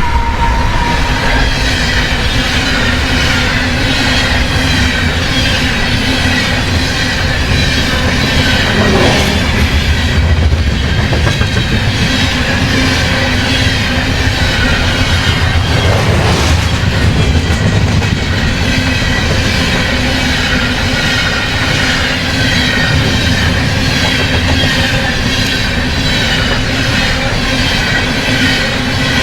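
Long, heavily loaded freight train of potash hoppers passing at track speed: a steady rumble and clatter of steel wheels on rail, with wavering high-pitched wheel squeal above it.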